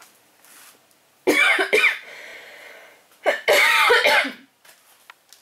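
A woman coughing harshly in two bouts about two seconds apart, the second longer.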